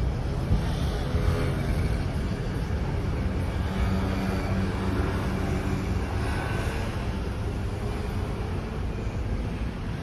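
Road traffic: cars driving past with a steady low engine and tyre rumble.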